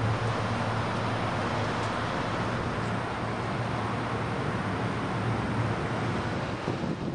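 City bus engine idling: a steady low hum under a constant wash of street traffic noise.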